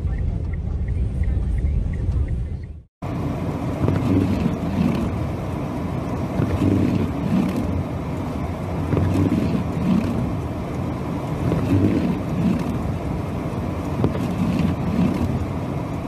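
Noise inside a car driving through a blizzard: steady engine and road rumble with gusting wind against the vehicle, swelling and easing unevenly. It breaks off briefly about three seconds in, then the same cabin noise resumes.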